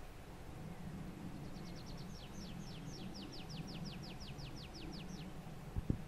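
Small songbird singing one phrase: a trill of about twenty quick down-slurred notes, faint and quickening at first, then a steady run of about six notes a second lasting some three seconds. A steady low rumble of background noise lies underneath, with a short knock near the end.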